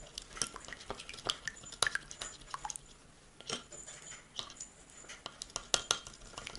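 Metal teaspoon stirring a thick soy-sauce and spice sauce in a small glass bowl, with irregular clinks and scrapes of the spoon against the glass, some ringing briefly.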